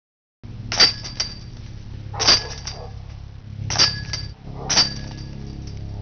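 Sharp metallic clangs from a steel disc golf basket, four strikes a second or so apart, each ringing briefly.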